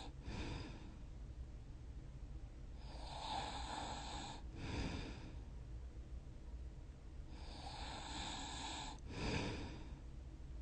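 Snoring in sleep: two slow breaths about four and a half seconds apart, each building up and ending in a short louder rasp.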